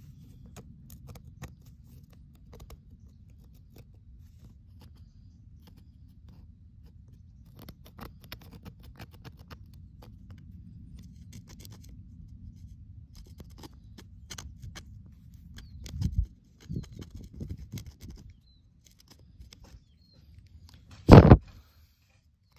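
Light clicks and scrapes of a small pointed tool working against the metal body and stem of a motorcycle fuel tap, over a steady low rumble. A couple of knocks come about two-thirds of the way in, and a single loud knock near the end.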